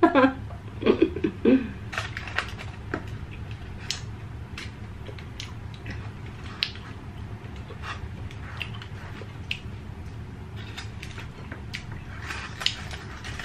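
Close-up mukbang eating sounds: roast duck being chewed, with scattered wet mouth clicks and smacks over a low steady hum, and a couple of short muffled hums with a full mouth at the start. The aluminium foil under the duck crinkles as fingers pull the meat apart.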